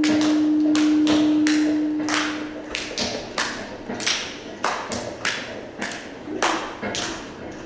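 Live industrial / power-electronics music: a loud held droning tone cuts out about three seconds in, while a series of sharp, reverberant knocking hits goes on at roughly two a second.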